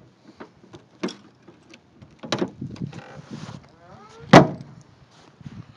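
Trunk lid of a 1939 Ford street rod swung down and shut, with one loud bang about four seconds in, just after a short rising squeak. A few lighter clicks come before it.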